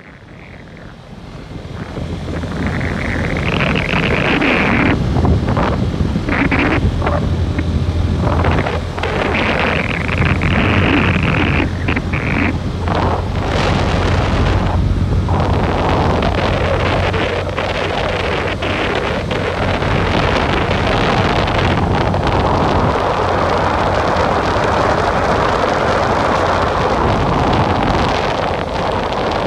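Wind rushing and buffeting over the microphone on a moving motorcycle, with the bike's engine running as a steady low hum underneath. The sound grows louder over the first few seconds and then stays loud and steady.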